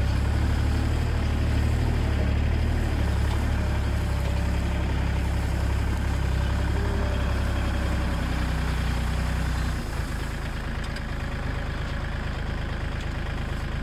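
Farm machine engine running steadily with a deep hum. About ten seconds in it becomes a little quieter and its tone changes.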